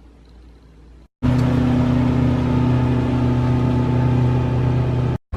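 A motor running steadily at an even pitch, coming in suddenly about a second in after faint room tone and cutting off abruptly just before the end.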